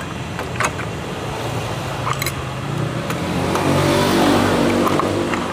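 A vehicle engine running near the workshop, its sound swelling to a peak about four seconds in and then easing, as if passing by. A couple of sharp metal clinks come from the clutch assembly being worked off its shaft.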